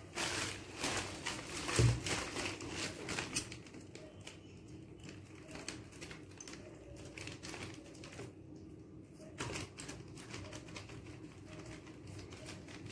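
Scissors snipping and working through a plastic courier mailer: a run of sharp clicks and rustles, busiest in the first few seconds, with one dull thump about two seconds in.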